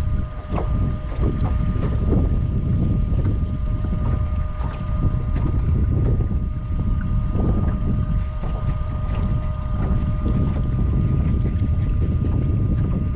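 Wind buffeting the microphone on an open boat: a loud, uneven low rumble throughout, with a faint steady whine running underneath and a few small clicks.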